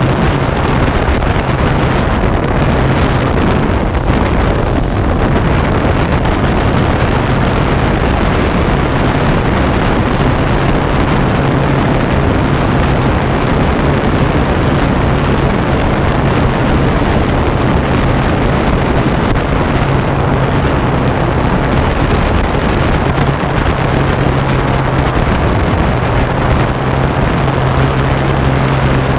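Multirotor drone's motors and propellers giving a steady, loud buzzing hum, mixed with wind rushing over the onboard camera's microphone.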